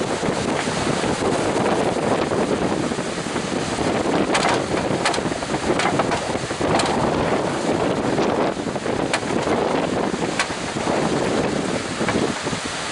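Strong wind blowing hard across the microphone over crashing surf, with a few sharp clicks scattered through the middle.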